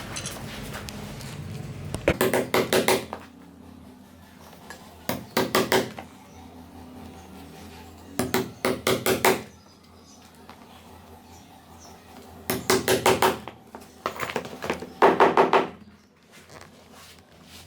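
A hand hammer striking in quick bursts of about five or six blows each, five bursts with pauses of a second or more between them, the blows ringing slightly.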